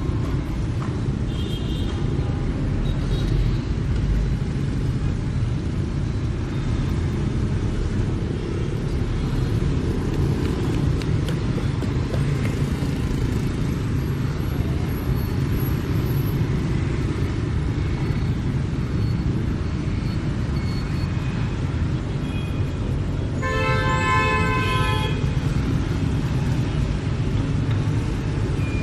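Steady street traffic of motorbikes and cars passing, with a short high horn beep about a second and a half in and a vehicle horn sounding for about a second and a half near the end.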